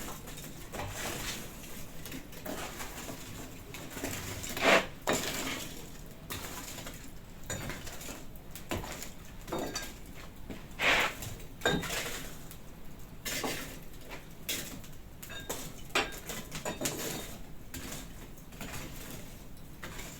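Irregular metallic clinks and clatter of parts being handled and set in place at a fireplace, with louder clanks about five seconds in and twice around eleven to twelve seconds in, over a steady low hiss.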